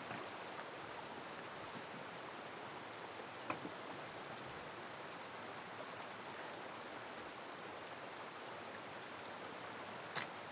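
Steady, even outdoor hiss of a flowing river, with a couple of faint clicks about three and a half seconds in and again near the end.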